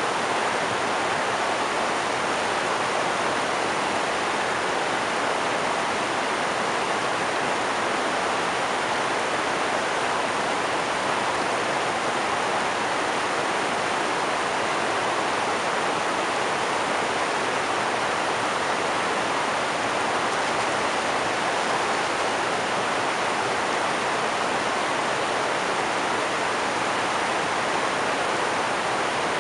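River rapids rushing over boulders: a steady, even sound of white water that does not change.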